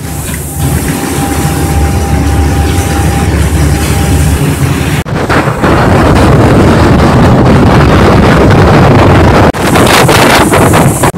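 Wind buffeting the microphone on the deck of a moving boat, over the steady low drone of the boat's engine. The engine is plainest in the first four seconds; from about five seconds in the wind noise dominates, changing abruptly twice.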